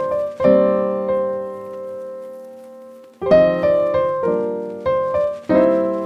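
Background piano music: chords struck and left to ring out, one long chord fading away about a second in, then fresh chords from about three seconds in.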